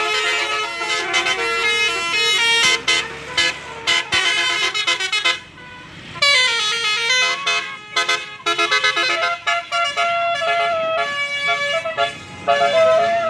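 Basuri-type telolet bus horns, multi-tone musical air horns, playing quick stepped melodies, the notes changing several times a second with short breaks between phrases. A brief drop about five and a half seconds in is followed by swooping tones.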